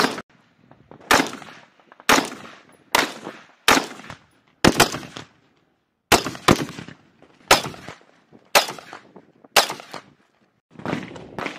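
Rifle fire: about a dozen single shots, roughly one a second at an uneven pace, each a sharp crack trailing off in a short echo, with a few fainter shots near the end.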